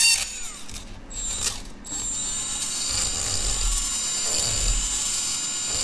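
Cordless rotary tool spinning a bit inside the eye of a metal ring terminal to ream the hole larger, the bit chattering against the metal. The tool winds down at the start, then from about two seconds in runs steadily with a high whine.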